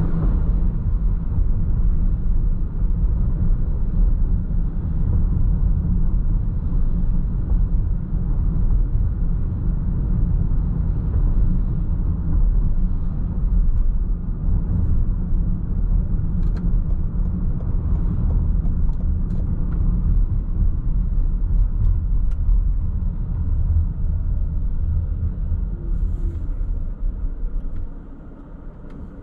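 Steady low rumble of a car driving along the road, dropping sharply near the end as the car slows to a stop at a red light.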